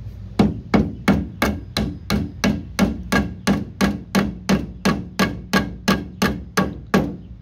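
Hammer striking the point of a nail again and again, about three blows a second, some twenty in all, driving the nail back out through a wooden 2x4 board so its head comes free on the other side.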